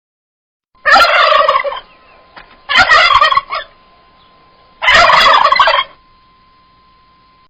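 Turkey calling: three loud calls of about a second each, roughly two seconds apart.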